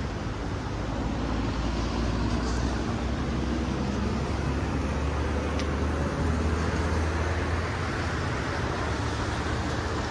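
Steady road-traffic noise: a continuous low rumble with hiss above it and no break.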